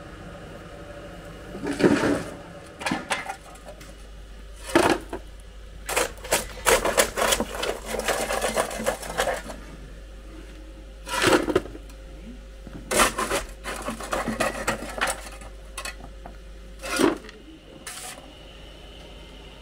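Coal being shovelled out of a bunker into plastic buckets: the shovel scrapes and lumps of coal clatter in irregular bursts, with single knocks between them and two longer runs of rattling.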